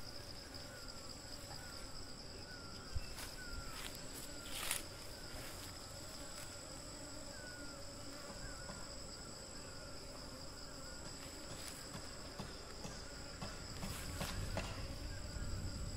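Steady high-pitched insect chirring, with honeybees buzzing around an open sugar-syrup feeder, and a few short clicks.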